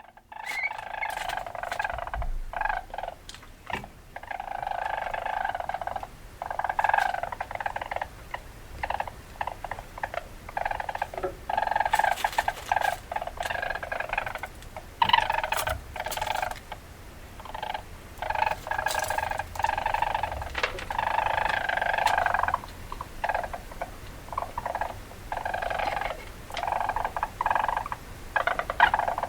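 Weasel chattering: rapid trilling calls in runs of a second or two, broken by short gaps and sharp clicks, repeating throughout.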